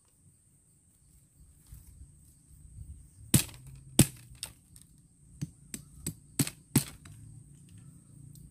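Dry sticks snapping: a run of about eight sharp cracks over three and a half seconds, starting a few seconds in, the first two the loudest. A steady high insect buzz runs underneath.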